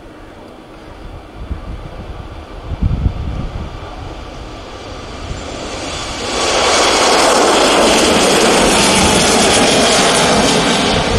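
Airbus A321neo jet airliner's Pratt & Whitney PW1100G geared turbofans at takeoff power as it lifts off and climbs past. The engine noise builds, turns suddenly much louder about six seconds in, then holds steady and loud. There are a few low rumbling gusts in the first few seconds.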